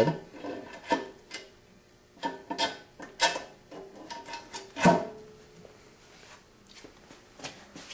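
Aluminum cylinder head being lowered onto a Ford flathead block over its head gasket and locating studs: a series of light metallic clicks and knocks with short ringing, the loudest knock about five seconds in.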